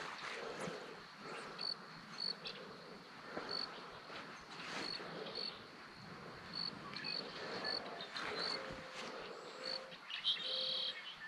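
A cricket chirping in short, high single notes, irregularly spaced about half a second to a second apart, over faint outdoor background. A longer, brighter call comes in near the end.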